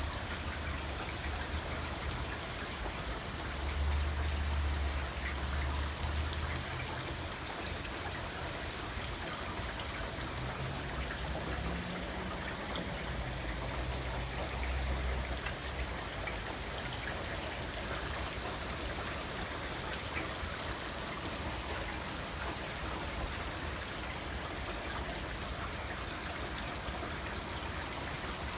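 Heavy rain falling steadily on a concrete patio and the surface of a swimming pool, an even hiss with faint scattered ticks of drops. A low rumble swells briefly twice, about four seconds in and again around fifteen seconds.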